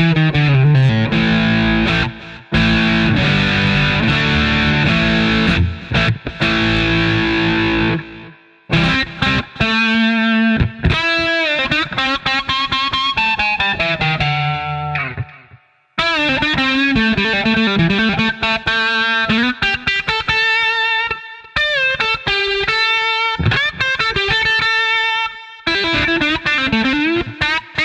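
Fender Stratocaster electric guitar played through heavy distortion: held chords and single-note lead lines with string bends. The playing stops briefly twice, about a third and just over half the way through.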